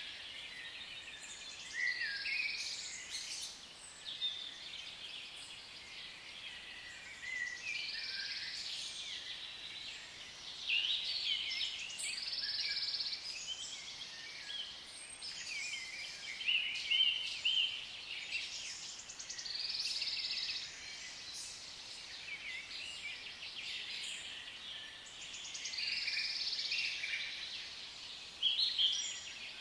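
Forest ambience: many birds chirping and trilling in short repeated phrases over a steady high-pitched background hiss.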